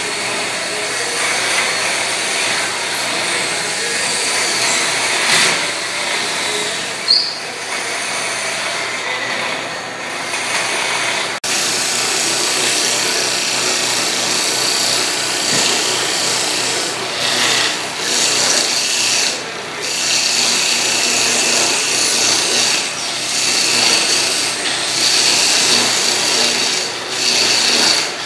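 Wood lathe spinning a wooden baluster blank while a hand-held turning tool cuts into it: a steady motor hum under a continuous scraping hiss of the cutting, with a brief break about eleven seconds in.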